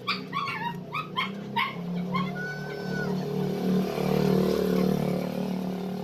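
A dog yipping and barking, about six short calls in the first two seconds. Under it a low, steady drone grows louder and becomes the loudest sound.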